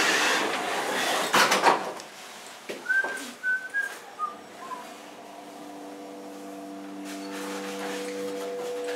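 Hydraulic elevator door closing with a couple of knocks, a few short high squeaks, then the car starting upward, its hydraulic pump unit running with a steady hum that slowly grows louder.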